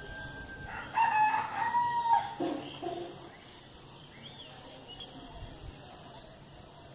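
A rooster crowing once, starting about a second in and lasting about two seconds, its call dropping to a lower note at the end.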